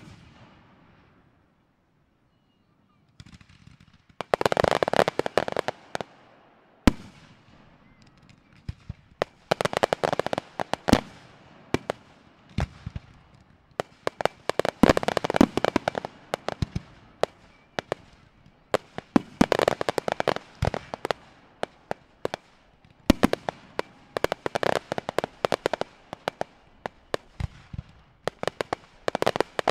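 Large fireworks display: after about two seconds of silence, volleys of rising comets and small bursts go off in clusters roughly every five seconds, each cluster a fast run of sharp bangs and crackles.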